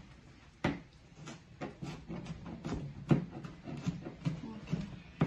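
Kitchen knife chopping onion on a plastic cutting board: a steady run of sharp chops, about two or three a second.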